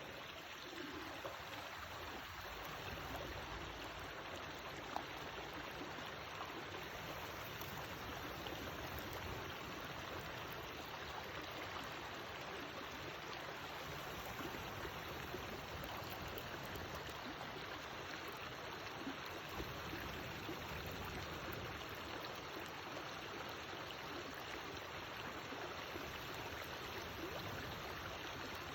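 Wood campfire burning over a steady rushing noise, with a few sharp pops, the loudest about five seconds in.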